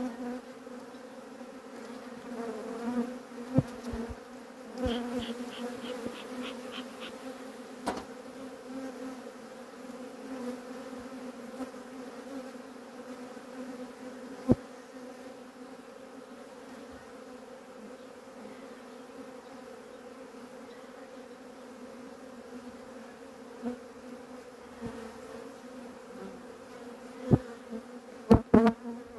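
Honeybees buzzing steadily in a dense swarm around an open hive. Now and then there is a sharp click or knock of a metal hive tool against the wooden frames, with several louder knocks close together near the end as a frame is pried up and lifted out.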